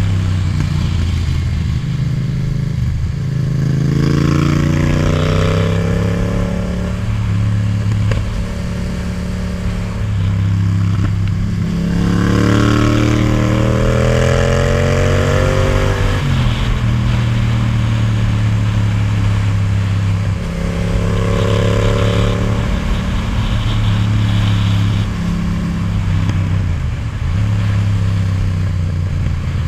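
Yamaha MT-07's parallel-twin engine through an Akrapovic titanium exhaust, heard from the rider's seat at road speed over wind noise. The engine pulls up through the revs three times, about four, twelve and twenty-one seconds in, and the throttle is shut sharply about sixteen seconds in.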